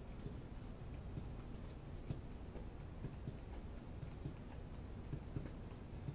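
Faint ticking clicks, roughly three a second and not quite even, over a low steady hum.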